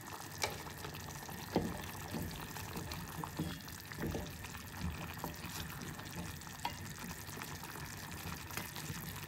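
Wooden spoon stirring chunks of potato and banana in tomato sauce in a metal pot, knocking against the pot now and then, over a steady wet hiss from the pot.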